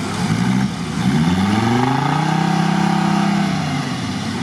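Off-road 4x4's engine revving up under load in deep mud: the pitch climbs from about a second in, holds high for about a second and a half, then drops back near the end.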